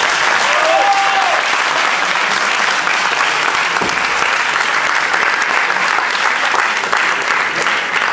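Audience applauding, with a short cheer from the crowd near the start.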